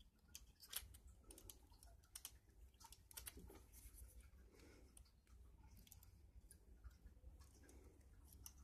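Faint, scattered clicks of pliers, wire and a potentiometer being handled while a wire is squeezed onto a potentiometer lug.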